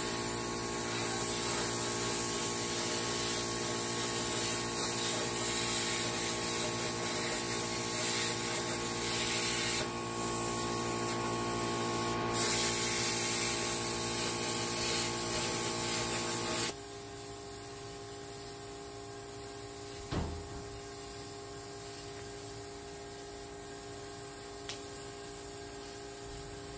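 Plasma cutter cutting through the steel shell of a smoker's cooking chamber: a steady hiss of air and arc over a hum of several steady tones. It dips briefly about ten seconds in and turns quieter about two-thirds of the way through.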